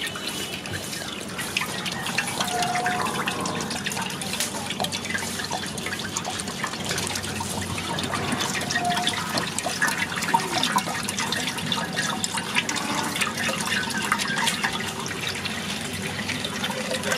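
Milk pouring in a stream into a large pan already full of milk, making a steady splashing.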